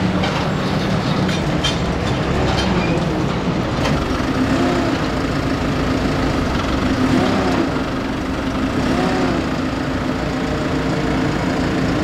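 JCB telehandler's diesel engine running, its note rising and falling several times as the operator works the boom and bale grapple under load, with a few knocks in the first few seconds.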